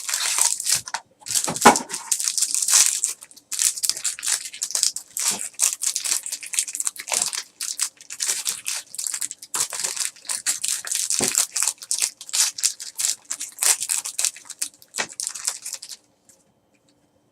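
A trading card pack's wrapper being torn open and crinkled: a long run of irregular crackling and rustling that stops about 16 seconds in.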